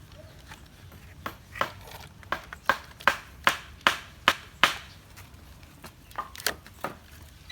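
Toy pieces knocked together in a run of about nine sharp knocks, two or three a second, then a few fainter knocks near the end.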